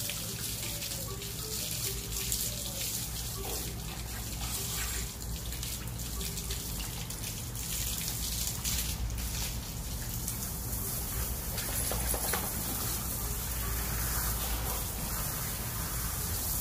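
Water running from a garden hose as a dog is hosed down and washed, a steady hiss of spray on wet fur.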